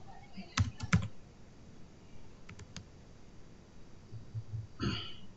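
Computer keyboard typing: a few scattered keystrokes, the sharpest about a second in, with fainter taps a couple of seconds later.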